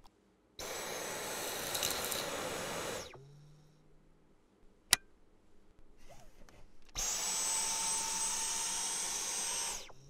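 Dyson V11 cordless stick vacuum running in two bursts of a few seconds each. Each burst starts with a high whine rising as the motor spins up and stops abruptly as the trigger is let go. A single sharp click falls between the two bursts.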